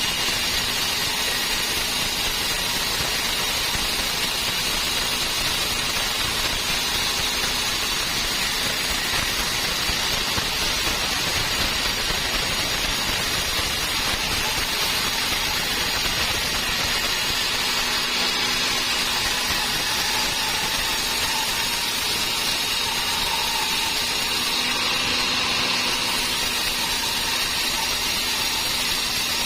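Sawmill saw running steadily on dry teak: a loud, even mechanical noise with a faint steady whine that holds without a break.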